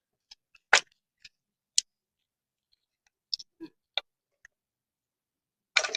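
A handful of short clicks and knocks from parts and tools being handled in a car's engine bay, the loudest a knock about three-quarters of a second in and a short clatter near the end.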